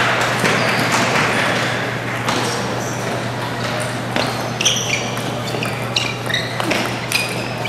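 Table tennis rally: the ball clicks sharply off the paddles and the table, a rapid string of hits over about five seconds, under the murmur of a crowd in a large hall. The crowd noise is louder at the start, before the rally begins.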